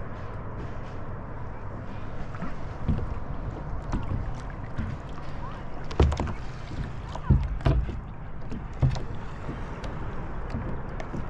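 Kayak on the sea: water splashing and knocking against the hull now and then, irregularly, over a steady low rush of wind and water. The loudest knocks come about six and seven seconds in.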